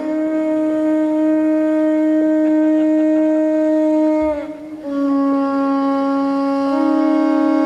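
A blown wind instrument holding long notes that step between two close pitches, dipping in pitch and breaking off for a breath about four and a half seconds in before sounding again.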